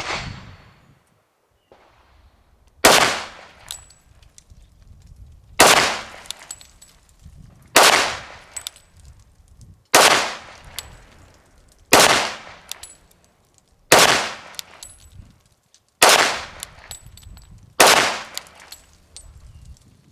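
Sig Sauer P320 Nitron .45 ACP pistol fired slowly in single, deliberate shots, about eight of them roughly two seconds apart, each with a short echoing tail.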